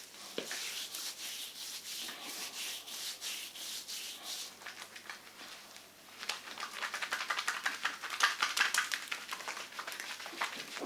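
Hands massaging a bare foot, skin rubbing on skin in steady strokes. About six seconds in this turns into a fast run of short rubbing strokes, many to the second, louder than before.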